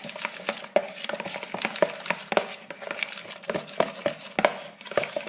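Tablespoon stirring a glue, borax-water and shaving-foam slime mixture in a container, with irregular clicks and scrapes of the spoon against the container as the mixture begins to set into slime.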